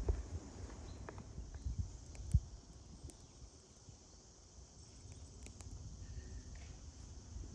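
A few soft knocks and thumps in the first couple of seconds, the last and loudest about two and a half seconds in, then a faint, steady outdoor background.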